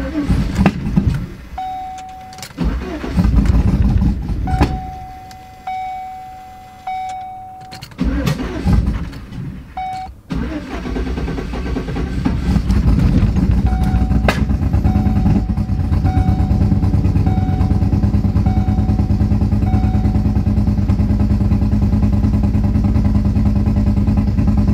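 A cammed Chevy Silverado's LS V8 is cranked. It fires and dies a few times, then starts about ten seconds in and keeps running with a pulsing idle, missing on the driver's side bank, whose coil packs get no power. The truck's warning chime beeps on and off through it.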